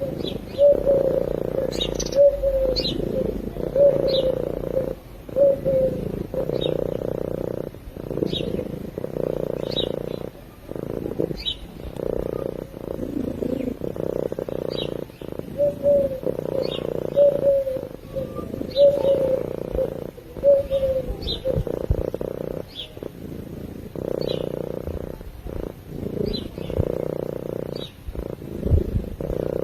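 Domestic cat purring steadily up close, with short high chirps every second or two over the purr.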